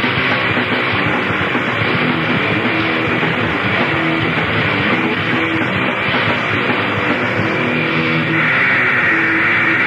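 Grindcore recording: heavily distorted guitar riffing over drums, dense and loud throughout. The sound turns brighter and slightly louder about eight seconds in.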